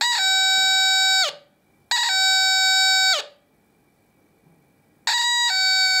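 Ding-dong doorbell tone from a 555 timer oscillator circuit through a bare loudspeaker driver: a harsh, buzzy note that steps from a higher ding down to a longer, lower dong. It sounds three times, each time triggered by touching a loose wire that stands in for the doorbell switch; the third has a longer high note.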